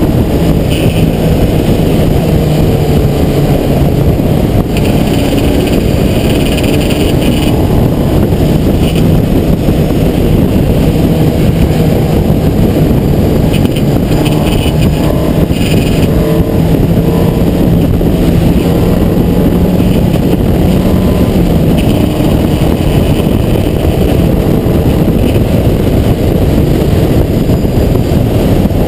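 Open-wheel Formula race car's engine running hard at speed, heard from a camera mounted on the car, its pitch rising and falling with throttle and gear changes, under heavy wind rumble on the microphone.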